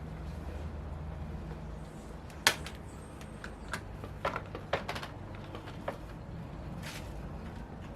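Scattered clicks and light knocks of hands working tools and plastic and metal parts on a car's front end, with one sharp click about two and a half seconds in and a quick run of smaller clicks after it, over a low steady hum.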